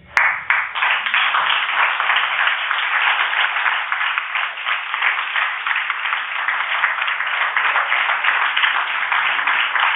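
Audience applauding: many hands clapping together, starting abruptly and holding at a steady level.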